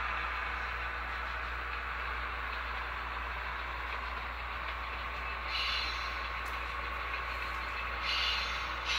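Simulated diesel prime mover sound of a GE 70-tonner from an HO scale locomotive's SoundTraxx Tsunami 2 decoder and small speaker, running steadily as the model moves along the track. There are short hisses about five and a half and eight seconds in.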